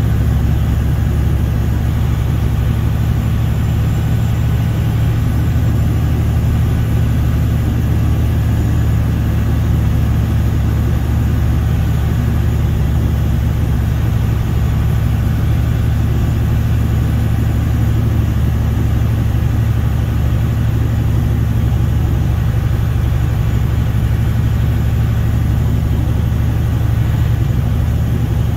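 Steady, even drone of a vehicle's engine and tyres heard from inside the cabin while it cruises at a constant speed, with no changes in pitch or level.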